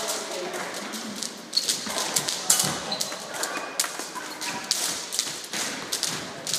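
Irregular taps and thuds of sports shoes on a sports-hall floor as players shuffle and step through table tennis footwork drills.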